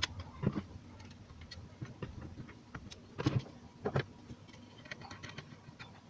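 Handling noise from an amplifier cabinet being closed up: scattered light clicks and a few knocks as the front panel and wiring are fitted into the case, the two firmest knocks a little past halfway.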